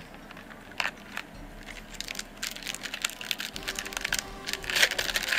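Foil wrapper of a trading-card pack crinkling and crackling as hands work it open. The crackles are sparse at first and grow denser and louder towards the end.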